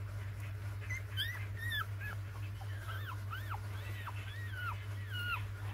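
Young puppies whimpering: a run of short, high-pitched cries, each rising then falling, starting about a second in and coming about twice a second, over a steady low hum.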